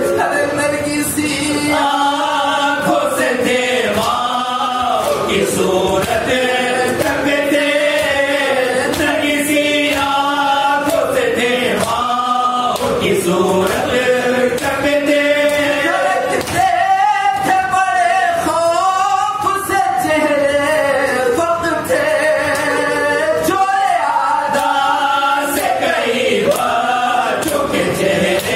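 Group of men chanting a marsiya, an Urdu elegy for Imam Husain, in unison without instruments and amplified through microphones, the melody rising and falling in long held lines. Scattered sharp slaps run through it.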